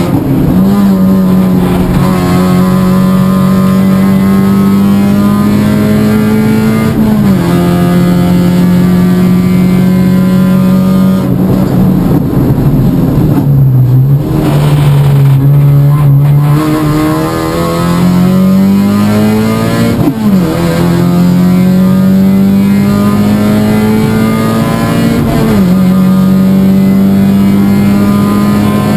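Toyota Yaris Cup race car's four-cylinder engine heard from inside the cabin, running hard at high revs on track. The pitch drops suddenly at gear changes about 7, 20 and 25 seconds in; in between, it falls lower and dips while the car slows for a corner, then climbs steadily as it accelerates out.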